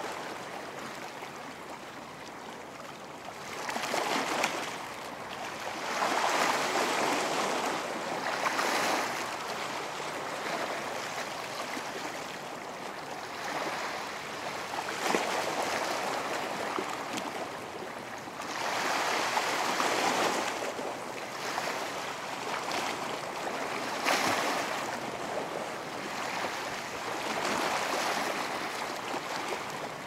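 Ocean waves breaking on a beach: a constant hiss of surf that swells into a louder wash every few seconds as each wave comes in.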